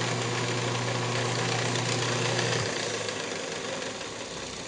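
Wood lathe running with a steady motor hum and a broad hiss while the spinning cherry bowl is sanded at 600 grit. About two and a half seconds in, the hum cuts out and the lathe winds down.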